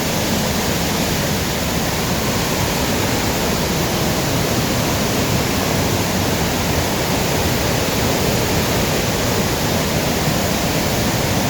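Waterfall close by: a loud, steady, even rush of falling water.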